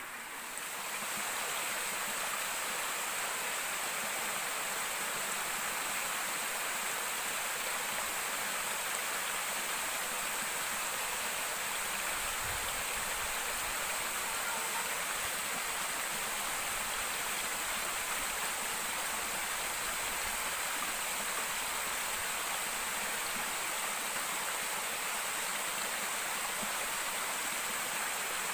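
Steady rush of flowing water in a river.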